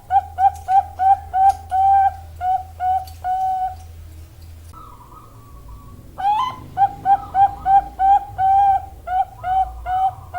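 Zebra dove cooing: two bouts of its rapid staccato song, each a string of about a dozen short coo notes, with a pause of about two seconds between them. The second bout opens with a longer rising note.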